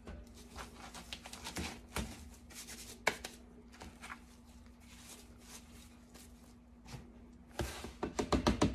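Gloved hands scraping and brushing dry, powdery soap-tablet mix across a plastic 3D-printed mold in a plastic tub, making soft scattered rustles and clicks. Near the end comes a quick run of louder knocks and rattles as the plastic tub is handled.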